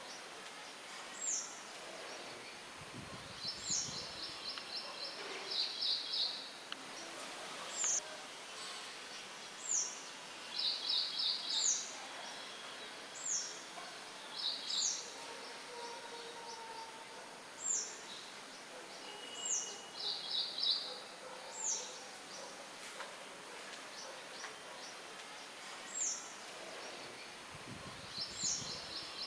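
Songbirds chirping over a steady wind rustle in leaves: short, high, downslurred notes repeat every second or two, with several brief rapid trills.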